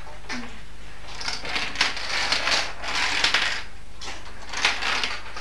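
Dominoes clicking and clattering against one another and the tabletop, in a quick run about a second in and a shorter burst near the end.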